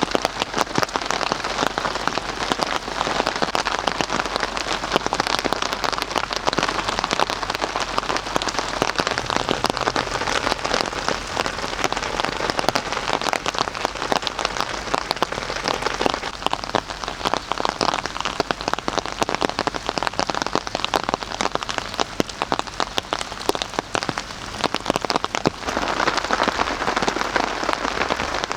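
Steady rain, a dense patter of drops hitting a surface.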